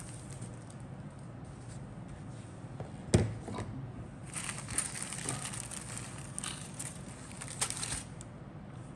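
Clear plastic kit bags crinkling and rustling as plastic model sprues are handled and drawn out of them, with one sharp knock about three seconds in.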